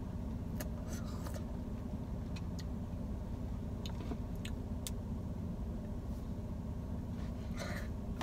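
Car engine idling, heard inside the cabin as a steady low hum, with a few faint clicks and taps scattered through it.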